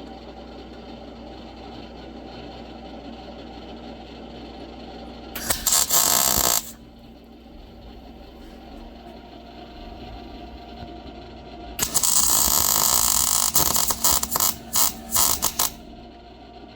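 Electric arc welding in two bursts, a short one about five seconds in and a longer one near the end that breaks into short stutters as it stops. The welder is filling a nut with weld to join it onto a broken bolt stub so the bolt can be backed out. A steady low hum runs between the bursts.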